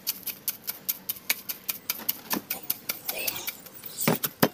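Pestle pounding in a small white ceramic mortar, crushing eggshells for compost: quick, even clicks about four a second, with a couple of louder knocks near the end.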